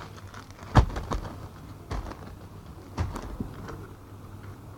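Objects being handled and set down on a table: a handful of dull knocks, the loudest a little under a second in, with lighter clicks and handling noise between.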